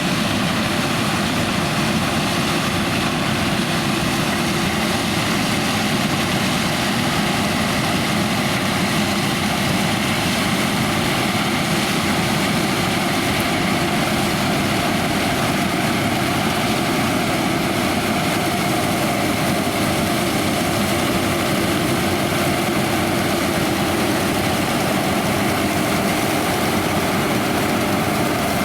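John Deere X9 1100 combine harvester running steadily while combining oilseed rape: a continuous engine and machinery drone with a few steady tones in it, unchanging throughout.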